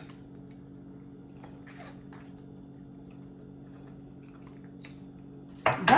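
A person chewing a mouthful of food, faint soft mouth sounds over a steady low electrical hum.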